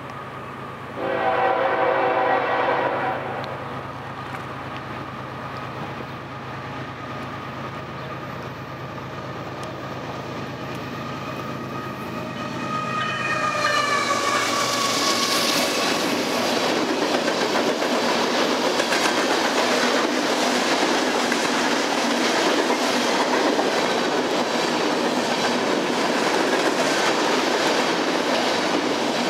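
A diesel freight locomotive sounds a horn blast of about two seconds, then its engine hums as it draws near. About halfway through, its pitch drops as it passes. After that, a line of covered hopper cars rolls by with a steady rumble and wheel clatter.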